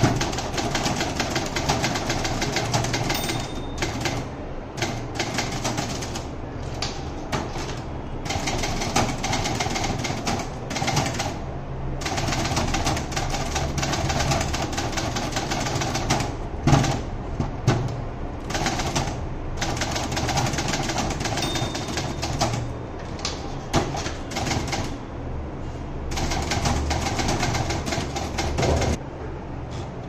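Fast, continuous typing on a Facit office typewriter: a dense stream of key and typebar strikes with short breaks every few seconds and a few louder knocks, stopping about a second before the end.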